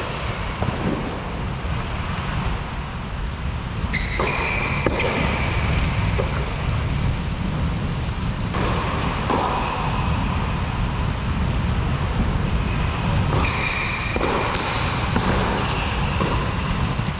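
Tennis rally: several sharp strikes of racket on ball and ball bounces on the court, coming in small clusters a few seconds apart, over a steady low rumble.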